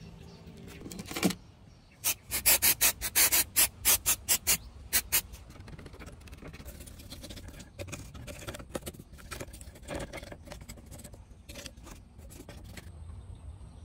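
Hand tool scraping while parts are cleaned: one scraping sweep, then a quick run of about a dozen hard scrapes in some three seconds, followed by lighter scattered scrapes and taps.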